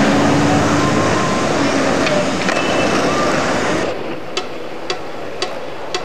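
Busy city street noise with traffic. About four seconds in it cuts off suddenly, giving way to a sparse music beat of sharp clicks, about two a second.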